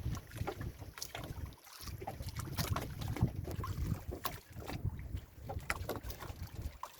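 Wind buffeting the microphone with a steady low rumble, over water splashing and lapping, with many scattered short clicks and knocks.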